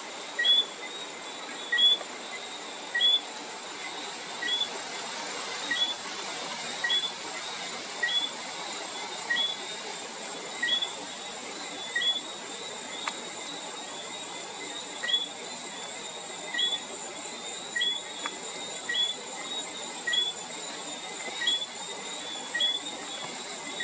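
Whistling frogs calling at night: a short low note followed by a higher whistle that slides upward, repeated about once a second, over a steady high-pitched insect trill.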